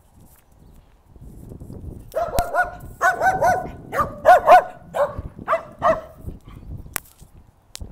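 A dog barking in a quick string of short barks, about a dozen in clusters, starting about two seconds in and stopping about two seconds before the end.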